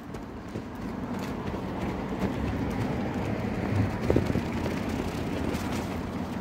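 Street traffic noise, with the steady rumble of a pushchair's wheels rolling over pavement and a few light clicks.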